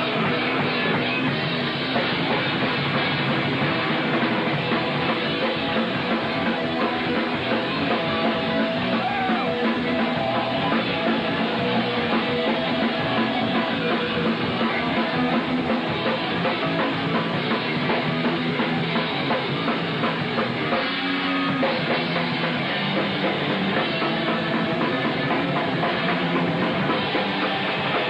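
Thrash metal band playing live: distorted electric guitars, bass and a drum kit in a dense, steady wall of sound, dull in the highs as on an old camcorder recording.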